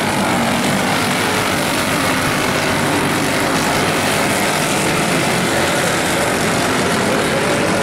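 A pack of racing karts with Briggs & Stratton Animal four-stroke engines running hard around a dirt oval. Several engines buzz together, their pitches rising and falling as they go through the turns.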